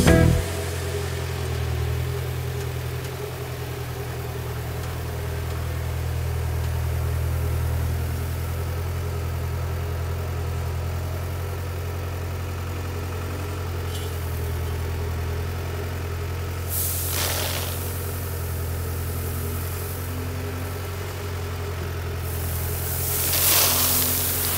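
Diesel engine of heavy machinery running steadily with a deep, even hum. There is a short burst of hissing noise about two-thirds of the way in and a longer, louder one near the end.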